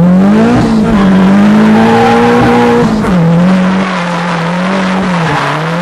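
Drift car engine revving hard, heard from inside the cabin: its pitch climbs, holds high, drops sharply about three seconds in and then rises and falls as the throttle is worked, with tyre squeal building as the car slides.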